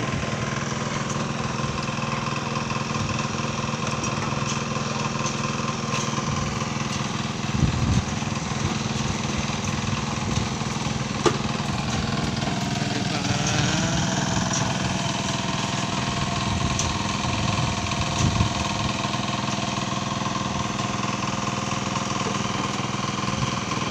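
An engine running steadily at an even speed, with a couple of brief knocks about eight and eleven seconds in.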